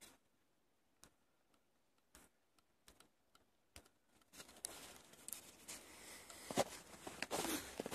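Footsteps crunching through packed snow, starting about halfway and growing louder, after a few faint scattered clicks.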